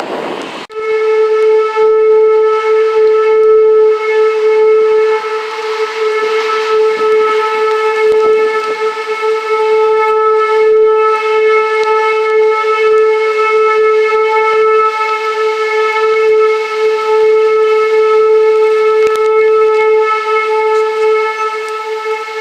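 Outdoor warning siren sounding one steady tone that starts about a second in and holds without rising or falling, over gusting storm wind.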